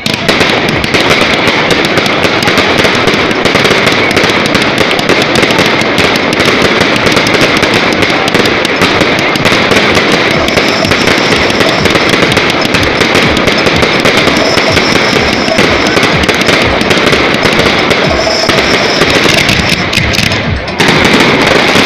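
A dense, continuous fireworks barrage: rapid crackling and bangs from bursting aerial shells and ground devices packed close together. About a second before the end it dips briefly, then comes back louder.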